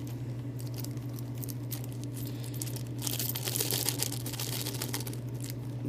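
Plastic bags crinkling and rustling as small kit items are handled and packed back into them, busiest about three to four seconds in, over a steady low hum.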